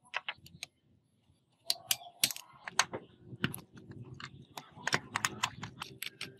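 Small screwdriver turning screws out of a rusty diecast model car's chassis: a quick run of sharp, irregular clicks and scrapes, with a brief pause near the start.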